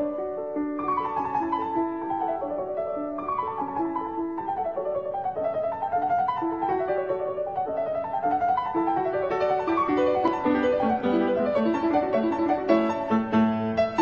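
Background piano music: quick running notes in a flowing, classical-style line.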